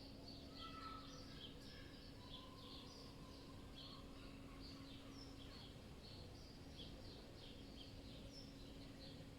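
Faint city ambience: many small birds chirping rapidly and continuously, with a few short whistled notes, over a low rumble. A steady low hum runs underneath and drops out briefly around the middle.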